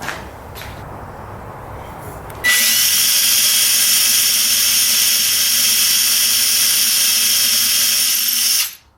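Power drill with a 6 mm brad point bit running steadily for about six seconds, boring a stop-depth hole into the back of a wooden drawer box. It starts suddenly about two and a half seconds in and cuts off sharply near the end.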